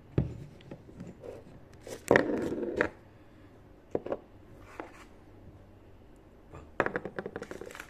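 Hands handling a small motorcycle brake master cylinder and its packaging: sharp clicks and knocks, with a scraping rustle about two seconds in and a quick run of clicks near the end.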